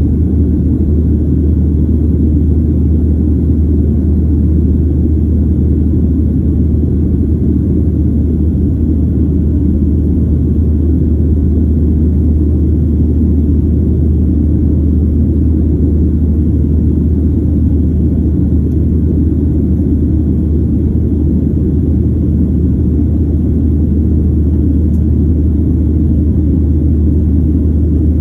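Steady low rumble of jet engines and rushing air inside the cabin of a Southwest Airlines Boeing 737 climbing out after takeoff.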